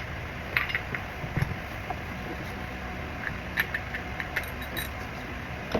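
Metal hand tools being handled: scattered light clicks and clinks of sockets and a wrench over a steady low background noise.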